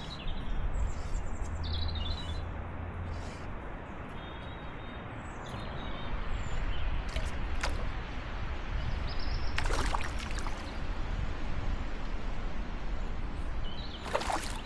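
Wind buffeting the microphone in a steady low rumble, with small birds chirping now and then. A few brief scratchy noises come about ten seconds in and near the end.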